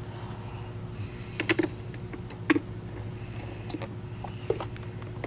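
A few scattered light clicks and taps of plastic and small screws as the base plate of an Oreck XL-21 upright vacuum is handled and screws are set into it, over a steady low hum.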